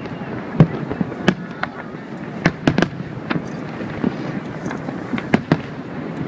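Fireworks display: a dozen or so sharp bangs of aerial shells bursting at irregular intervals, over a steady background hum of crowd and city noise.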